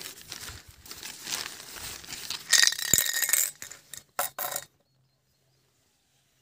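Fishing gear being handled: rustling and light clinking, with a louder clatter about two and a half seconds in. The sound cuts out abruptly a little past four seconds, leaving dead silence.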